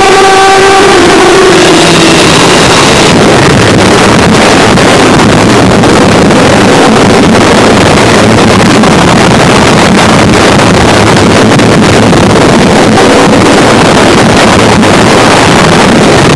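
Harsh noise music: a loud, distorted pitched tone dies away in the first second or so, and a dense wall of static noise takes over.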